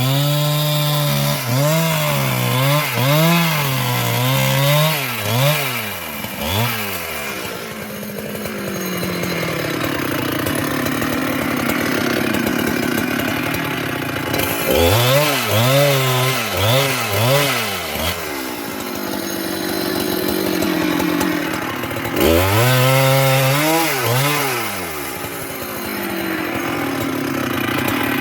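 Large Husqvarna two-stroke chainsaw. The throttle is blipped up and down in quick pulses at the start, around the middle and again near the end, and between these the saw holds steady at high revs while cutting into sengon (albizia) wood.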